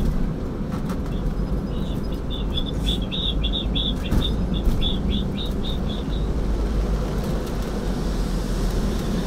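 Steady low engine and road rumble heard from inside the cabin of a moving bus. Over it, about two to six seconds in, comes a run of short, high chirps at about three or four a second.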